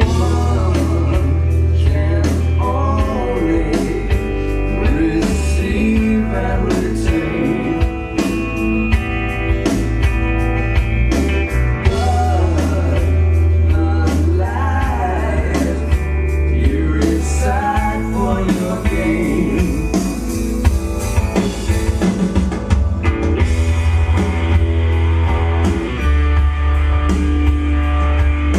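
Rock song with singing, guitar and drums over a heavy bass line, played through Rega Aya loudspeakers in a demo room.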